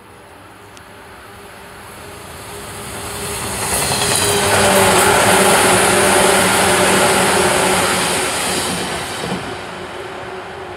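JR West 117 series electric multiple unit passing through the station at speed without stopping: the noise of wheels on rail builds for about four seconds, is loudest for about four seconds as the cars go by, then fades.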